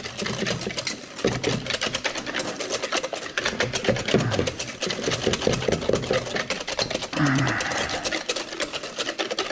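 Whisk beating fast against the side of a bowl: a rapid, steady clatter of clicks as oil is whisked by hand into mayonnaise.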